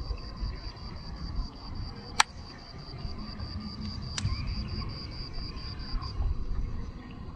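An insect chirping a high note in even pulses about five times a second, stopping about six seconds in, over a low rumble. Two sharp clicks about two and four seconds in, the first the loudest.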